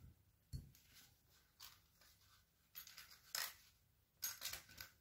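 Faint, scattered clicks and light taps of small screws, parts and hand tools being handled on a tabletop during air-rifle reassembly. There are a handful over the few seconds, the loudest about three and a half seconds in, and a quick cluster near the end.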